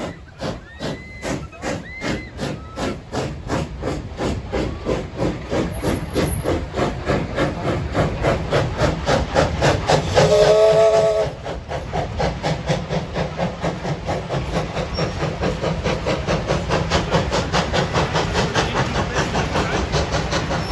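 Steam locomotive pulling away with a train of carriages, its exhaust chuffs growing louder and quickening as it gathers speed. About ten seconds in, it gives one loud whistle blast of about a second.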